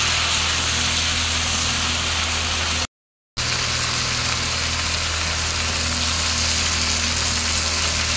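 Beetroot, carrot and potato pieces sizzling steadily in hot oil in a pan as they are stirred, over a steady low hum. The sound breaks off completely for a moment about three seconds in.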